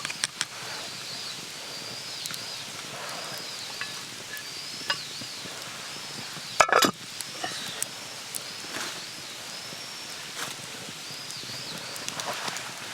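A small creature's high, arching chirps repeating about once a second, with one sharp clink near the middle.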